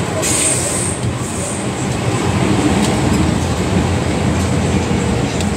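Inside a Hong Kong MTR Metro-Cammell M-Train running at speed from the tunnel into a station: a steady loud rumble of wheels on rail and running gear, with a brief high hiss in the first second or so and a few faint clicks.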